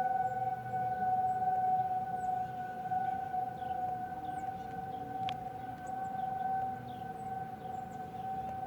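Outdoor tornado warning siren sounding a steady held tone during a test, its loudness swelling and fading and slowly easing off.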